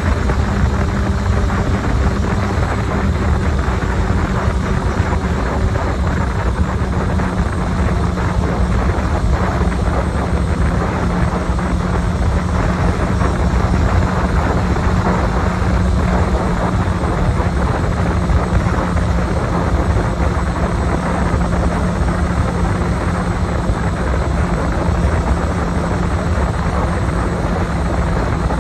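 Heavy wind rush on the microphone over a Honda CB1000R's inline-four engine running at highway speed. The engine's low steady note sinks slightly as the bike slows from about 130 to 110 km/h.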